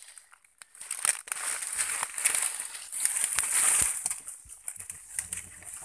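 Dry twigs and leaf litter rustling and crackling with many small snaps as dense undergrowth is pushed through, loudest from about one second in until about four seconds in, then quieter.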